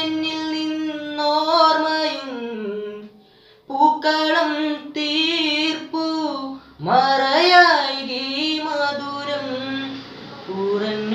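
A teenage boy singing solo, without accompaniment, in long held notes with wavering, ornamented pitch. He breaks off briefly about three seconds in before carrying on.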